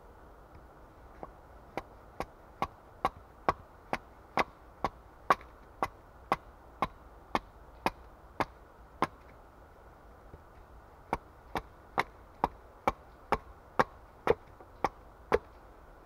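Hatchet chopping into a split log held upright: a steady run of sharp wooden chops, about two a second, then a pause of about two seconds and a second run of about ten chops.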